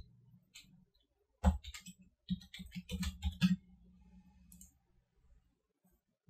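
Computer keyboard being typed on, a quick run of keystroke clicks from about one and a half to three and a half seconds in.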